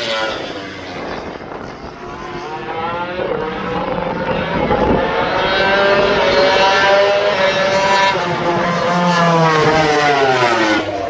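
MotoGP race motorcycle engine running hard at high revs, its pitch climbing steadily for several seconds, then falling away towards the end.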